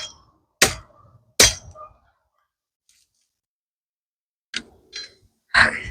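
Dry fallen pecan branches cracking and knocking as they are broken up and handled: three sharp cracks in the first two seconds, a pause, then three more near the end.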